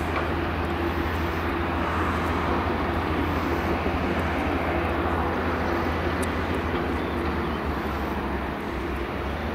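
Boeing 787-8 Dreamliner's two turbofan engines running at low taxi power as the jet rolls along the taxiway: a steady, even jet rumble with a low hum.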